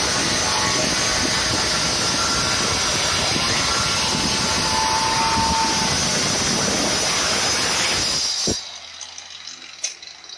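Handheld electric marble cutter running at full speed as its blade cuts straight through a floor tile: loud and steady, with a high whine over the grinding. It shuts off abruptly about eight and a half seconds in, and a light knock or two follows.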